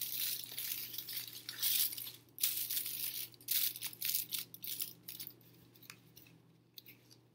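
Aluminum foil crinkling in repeated quick bursts as it is pressed and folded down over a cardboard edge, dying away after about five seconds.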